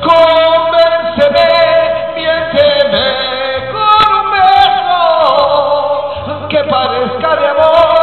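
Man singing a romantic ballad into a handheld microphone over recorded backing music, holding long notes, with one line sliding down in pitch about halfway through.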